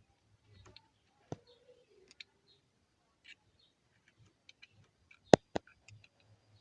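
Small plastic clicks and taps from the 2011 Ford Focus steering-wheel audio-control switch housing being closed up and refitted, with two sharp snaps close together about five seconds in.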